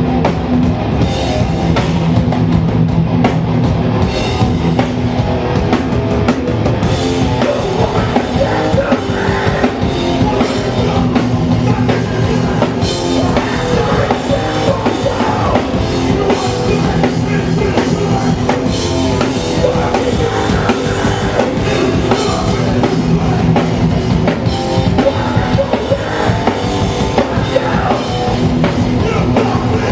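Hardcore punk band playing live: distorted electric guitars, bass and a fast drum kit, with shouted vocals at times, heard through the venue's PA.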